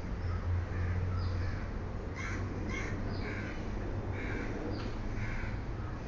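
Crows cawing, a run of short calls about two a second that grow stronger from about two seconds in, over a steady low hum.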